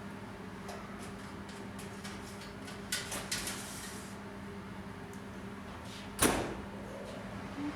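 Metal handling sounds over a steady hum: a few light clicks about three seconds in, then one loud, sharp bang about six seconds in, like a door or cupboard being shut.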